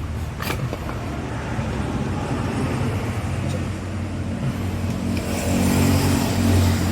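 Car engine running steadily, picking up in level about five and a half seconds in as if revved. A sharp click sounds about half a second in.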